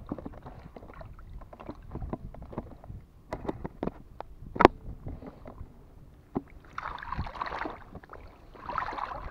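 Water sloshing and splashing at the surface right below the microphone, with two louder splashy spells in the second half, mixed with scattered clicks and knocks from handling fishing line and a multi-hook rig close to the microphone; one sharper knock comes about halfway through.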